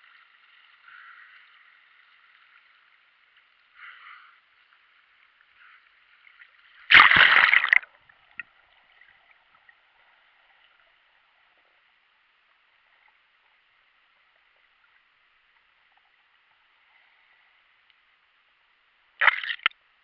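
Seawater sloshing and splashing against an action camera in its waterproof housing at the waterline. About seven seconds in there is a loud splash lasting about a second. After it the underwater sound is nearly silent, until a second short splash or knock near the end.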